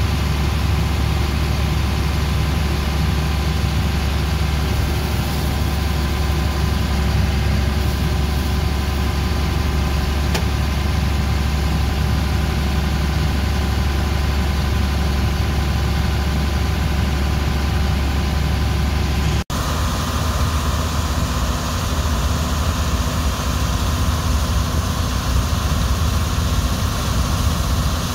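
John Deere 4855 tractor's six-cylinder diesel engine running steadily, heard inside the cab, while it drives the grain cart's unloading auger. About two-thirds of the way through, the sound cuts out for an instant and switches to a thinner steady sound of the tractor and auger heard from outside.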